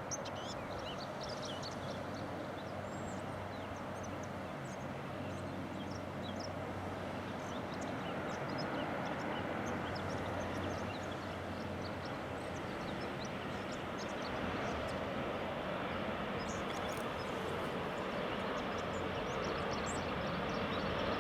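Aircraft engine noise at an airport: a steady rumble with a low hum, slowly growing louder towards the end.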